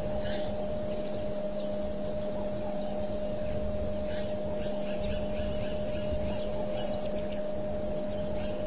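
Small birds chirping and twittering in short, high calls scattered through, over a steady electrical hum and low rumble.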